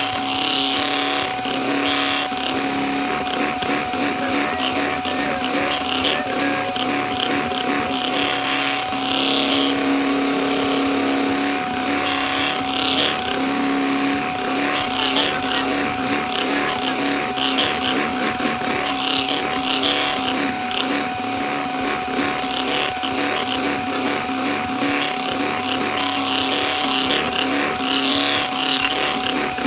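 Electric hand mixer running at high speed with a steady motor hum, its beaters whipping egg whites into meringue in a glass bowl.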